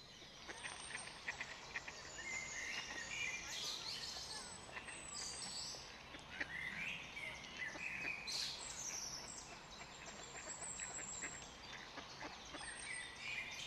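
Birds calling and chirping, many short calls throughout, with scattered clicks.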